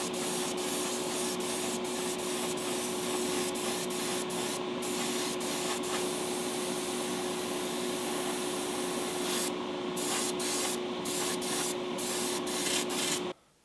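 Airbrush spraying paint: a steady hiss of air and paint over a steady hum. The spray stops and restarts several short times in the second half as the trigger is let off, then cuts off suddenly just before the end.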